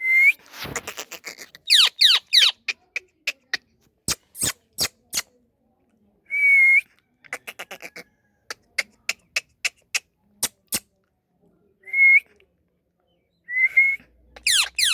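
Indian ringneck parakeet calling: four short whistles, each rising at the end, and quick downward-sweeping chirps about two seconds in and again near the end. Many sharp clicks are scattered between the calls.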